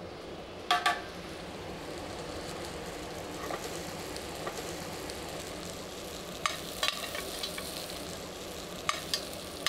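Pan-roasted potatoes and onions sizzling steadily in a hot sauté pan. In the last few seconds a metal spoon clinks and scrapes against the pan as they are spooned out.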